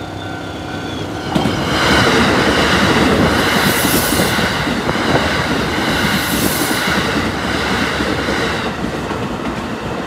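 Keikyu New 1000-series electric commuter train passing a level crossing at speed, its wheels clattering over the rail joints. A steady level-crossing warning bell tone is heard in the first second, until the train's noise takes over; the passing noise is loudest in the middle and eases near the end.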